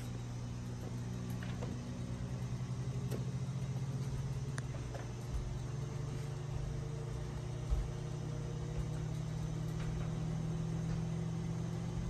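Steady low hum of an electric motor or appliance running, with a few faint ticks and a short soft thump about eight seconds in.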